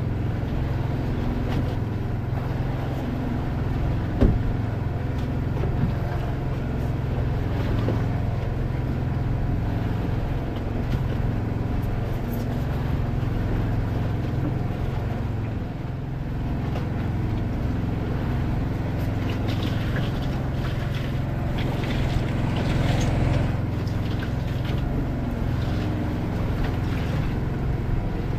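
Boat engine running steadily with a low, even hum, and a single sharp knock about four seconds in.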